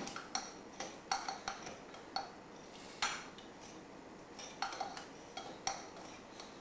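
Muddler knocking and grinding against the bottom of a small cocktail shaker, crushing fresh ginger in lemon juice to release its oils: irregular sharp knocks, about two a second.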